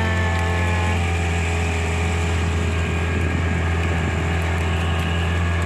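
Small outrigger tourist boat's engine running steadily under way, a constant low drone.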